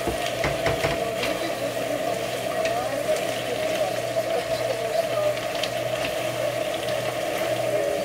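Udon noodles, chicken and vegetables sizzling in a wok over high heat, stirred with a wooden spatula that gives scattered light clicks, over a steady hum.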